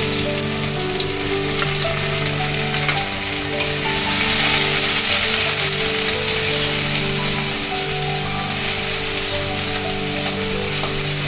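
Chopped onions sizzling as they fry in hot mustard oil in an aluminium kadai, stirred with a metal spatula that clicks and scrapes against the pan. The sizzle swells about four seconds in.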